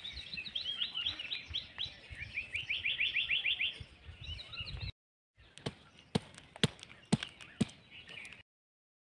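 Small birds chirping in quick repeated notes, with one fast trill about halfway through the chirping. After a brief break, a few sharp clicks as a knife blade is pressed and tapped into a pumpkin's hard rind.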